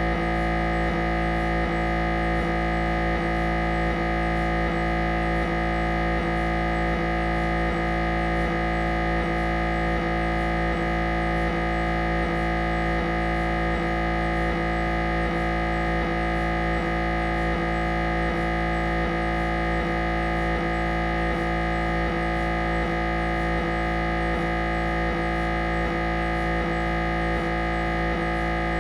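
Siemens Magnetom Avanto MRI scanner running a head-scan sequence: a steady, loud drone of several held tones over a low hum, with a faint regular pulse about two to three times a second.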